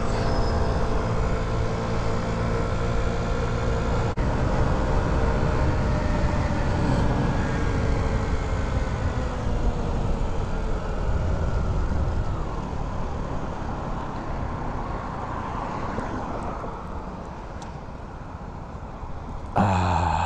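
Honda Ruckus scooter's small engine running under way, with wind and road rumble. Its note falls in the middle and the sound gradually fades as the scooter slows. A short breathy vocal sound comes just before the end.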